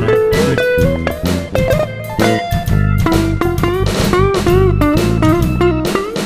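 Electric guitar solo with bent notes and vibrato, played over a band with bass and drums.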